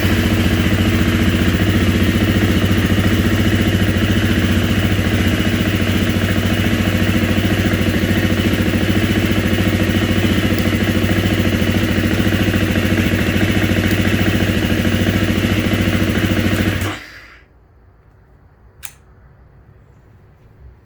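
Dirt bike engine idling steadily at a constant speed with no revving, then switched off about 17 seconds in. A single click follows a couple of seconds later.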